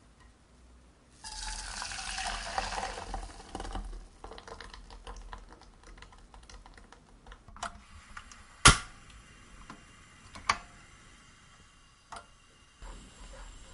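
Thin custard mixture of milk, egg yolks, sugar and flour pouring from a glass bowl into an enamel saucepan for a few seconds, followed by faint crackling and scattered clicks, then a few sharp knocks, the loudest a little past the middle.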